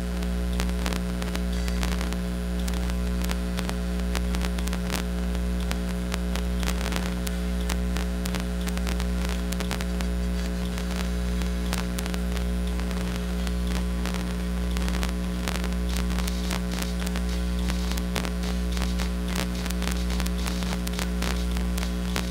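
Loud, steady electrical mains hum with crackling static from the stage sound system.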